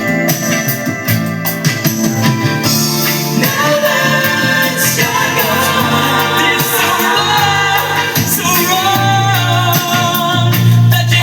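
A recorded pop song with singing, played back through a hi-fi system driven by an Arcam Alpha 1 integrated amplifier; a steady bass line sits under a wavering melody.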